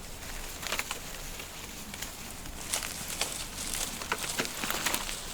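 Goats browsing on felled tree branches: leaves rustling and small twigs cracking in a string of light, irregular clicks and crackles.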